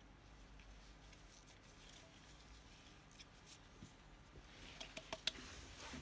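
Faint handling of a metal keypad plate by gloved hands: scattered light clicks, then a quick cluster of sharper clicks and taps near the end as the plate is moved.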